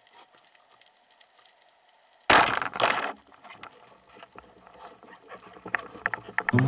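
Speargun fired underwater: a sudden loud crack about two seconds in, followed half a second later by a second burst of noise, then scattered faint clicks.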